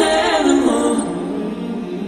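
Slowed-down pop song with a sung vocal line. About halfway through, the bass drops out and held notes carry on as the level starts to fade.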